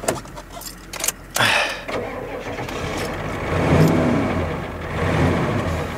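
Engine of an old Ford Econoline van running and revving up as it is put into reverse. There are a few sharp clicks in the first second or so, and then the engine builds to its loudest a couple of seconds later.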